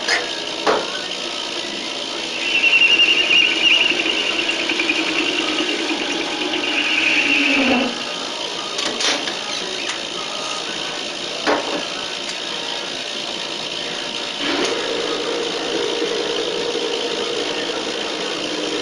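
Capstan lathe running under cut: the turret tool squeals high-pitched against the spinning metal work for about five seconds, dropping in pitch as the cut ends, followed by a few sharp clicks and then a steadier, lower whine as the next tool cuts.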